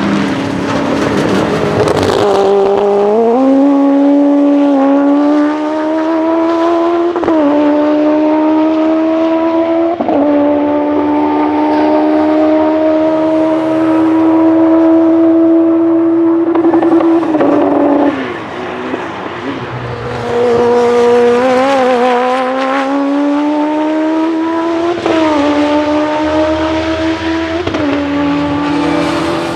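Honda CBR1100XX inline-four motorcycle engine revving hard through its motorbike gearbox: the pitch climbs and falls sharply at each quick upshift. It holds high revs for several seconds, then backs off briefly about two-thirds of the way through. It then pulls through the gears again, with three more upshifts.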